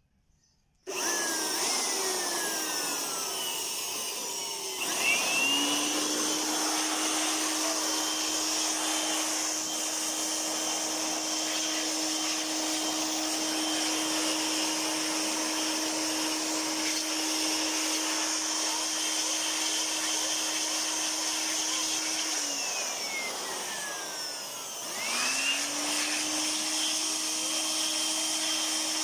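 Electric motor of a dust-cleaning appliance switching on suddenly and running with a rushing hiss and a steady hum. The motor speeds up about five seconds in, slows briefly a little after twenty seconds, then climbs back to full speed.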